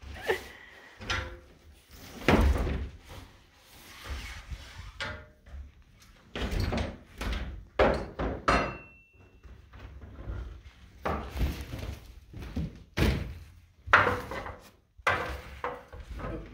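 Irregular knocks and thuds of wooden boards and framing being struck and worked loose by hand, about a dozen in all, with a short high squeak about eight and a half seconds in.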